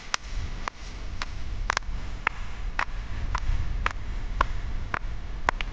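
Hand claps keeping a steady beat for dancing, about two claps a second.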